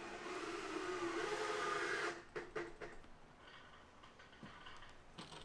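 Power drill driving a screw into the plywood enclosure panel: the motor whines for about two seconds, its pitch wavering under load, then stops, followed by a few sharp clicks.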